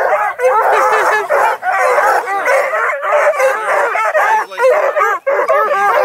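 A pack of young coonhounds and hound mixes (Redbones, Blueticks, Black and Tans) yelping and baying all at once: many high, overlapping cries that rise and fall in a continuous chorus, from excited pups crowding and jumping for attention.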